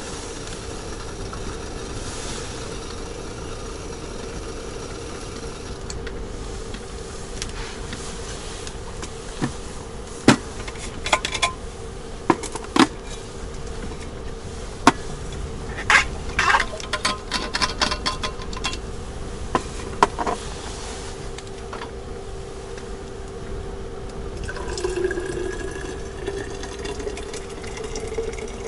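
Metal clinks and knocks as a steel thermos and cups are handled, then water poured from a camping kettle into the steel thermos near the end, its pitch rising as the thermos fills. A steady low hum runs underneath throughout.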